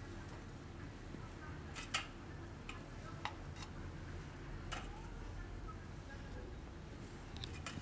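A few light clicks and taps of crockery as fried appe and a serving plate are set against a ceramic plate, the sharpest tap about two seconds in, over a low steady room hum.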